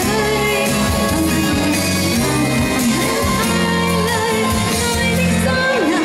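A female pop singer singing live over a pop backing accompaniment, a ballad-like melody carried over a steady bass and chords.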